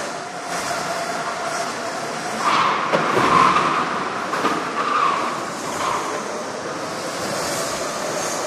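Sodi Kart STX electric karts racing, a steady electric motor whine over tyre and track noise, with tyres squealing through the corners from about two and a half to six seconds in.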